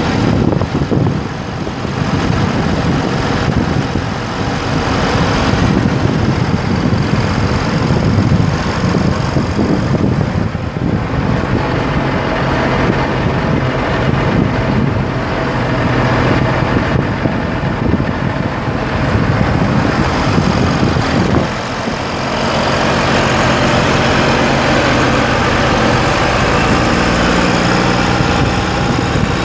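Case IH MX255 tractor's 8.3-litre six-cylinder turbo diesel idling steadily; the hum becomes steadier and more even about three-quarters of the way through.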